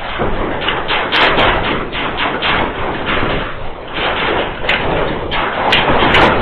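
Continuous rattling and banging of loose objects and doors in a building shaking in an earthquake, with heavy knocks coming close together.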